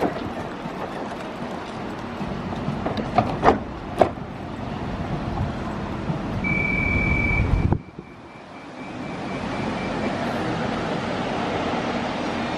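Copenhagen S-train at a platform: a few sharp knocks as its doors shut, then a short high beep. The train's steady hum cuts off suddenly, then its running noise builds back up as it starts to move off.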